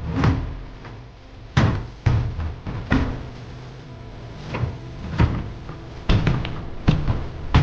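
A series of irregular knocks and thuds, about ten in all and unevenly spaced.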